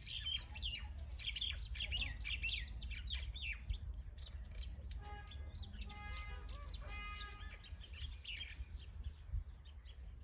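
A flock of birds chirping, many quick overlapping chirps at once. About halfway through, a few short, harsher calls stand out, each with a buzzy, ringing tone.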